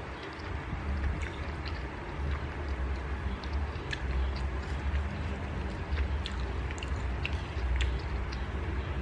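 Faint, scattered clicks and scrapes of a metal fork and spoon against a ceramic bowl as instant noodles are stirred and twirled, with chewing, over a steady low rumble.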